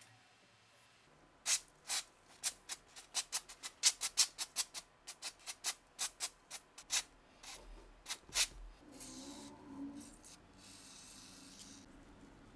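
WD-40 aerosol can spraying through its straw in a rapid run of short bursts, about four a second, wetting rusty pistol parts with penetrating oil. Near the end the bursts stop and give way to a softer hiss and cloth rubbing over the oiled metal.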